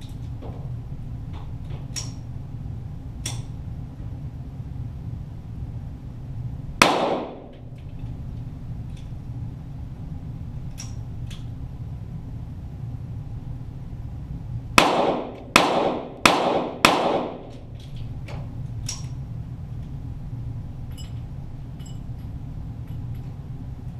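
.22 Walther GSP target pistol shots, heard from beside the target at an indoor range. There is one shot, then four in quick succession about two-thirds of a second apart, each with a short echoing tail. Fainter clicks fall between them, over a steady low hum.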